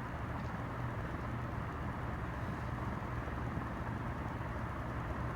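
Diehl ceiling fan with aluminum blades running after being switched on: a steady low motor hum under the even whoosh of the blades moving air.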